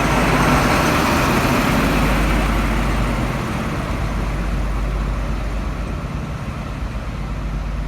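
Class 43 HST power car's diesel engine running loud and close, loudest about a second in, then slowly fading.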